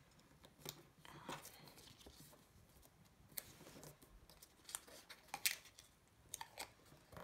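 Cardstock being folded and creased by hand: faint rustling with scattered sharp little clicks and taps of the card.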